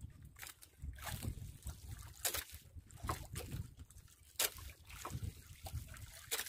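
Sea water sloshing around a small outrigger fishing boat, broken by a few sharp knocks and clicks as gear is handled aboard; the loudest knock comes about four and a half seconds in.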